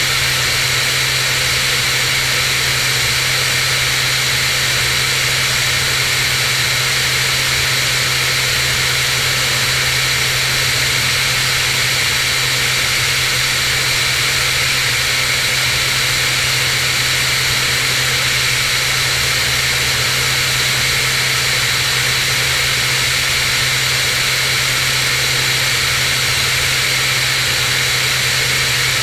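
Cirrus SR22 single-engine piston plane in flight: the engine and propeller drone steadily with a constant low hum, under a steady hiss of rushing air.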